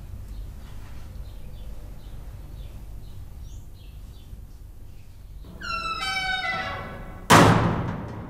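Film soundtrack ending sting: over a low hum, a drawn-out tone slowly falling in pitch for about two seconds, then a single heavy boom near the end that rings out and fades.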